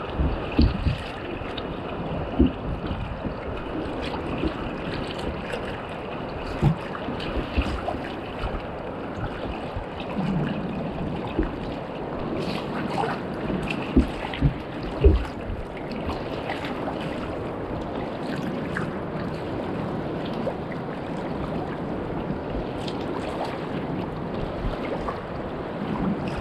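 Ocean surf and wind buffeting the microphone, with a steady wash of noise and occasional short low thumps.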